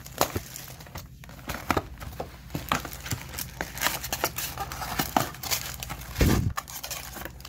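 Foil card-pack wrappers crinkling and rustling with irregular crackles as the packs are handled and pulled out of an opened box. A single dull thump about six seconds in.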